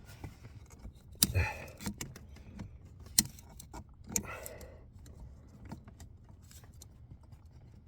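Flathead screwdriver clicking and scraping against the brake light switch's retaining clip under the dashboard while prying it off, a series of sharp clicks and short rattles, the loudest about one and three seconds in.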